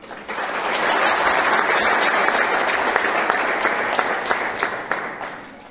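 Audience applauding, a dense steady clapping that builds quickly about a quarter second in and dies away near the end.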